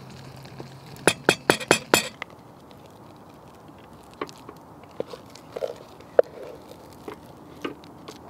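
A spoon knocking against a metal camping pot of mashed potato: a quick run of about six sharp clinks about a second in, then softer scattered taps and scrapes as the mash is spooned out onto wooden plates.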